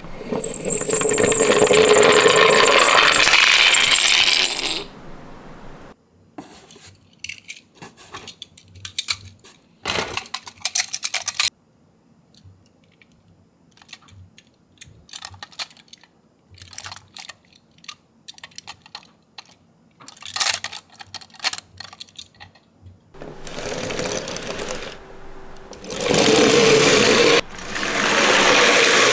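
Toy minicars rolling down a slope with a loud, even rattling clatter, in a long run of about five seconds at the start and several shorter runs near the end. Between the runs there are light clicks and taps as the cars are handled.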